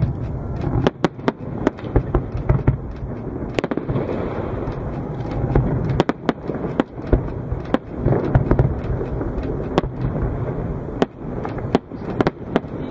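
Aerial firework shells bursting in a display: an irregular run of sharp bangs, some in quick succession, over a steady low rumble.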